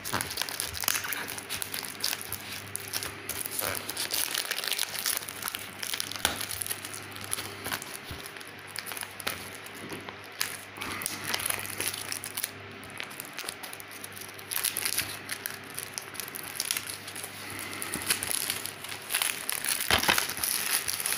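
Plastic shrink wrap being peeled off a DVD case by hand, crinkling with many small irregular clicks, louder near the end.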